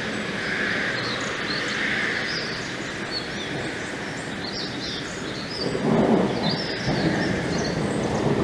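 Songbirds chirping over a steady outdoor hiss, with a louder low rumble of distant thunder setting in about six seconds in.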